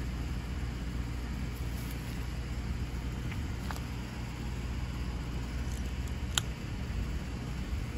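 Steady low rumble of outdoor background noise, with a few faint clicks and one sharp click about six seconds in as the plastic-topped metal stake of a path light is handled and pressed into the ground.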